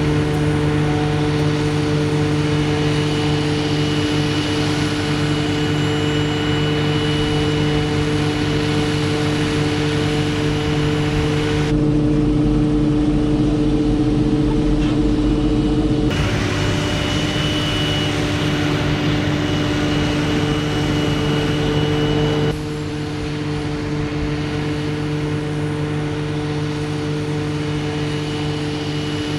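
Heavy farm machinery running steadily while chopping maize: a deep engine drone with a constant higher whine, its tone shifting abruptly three times.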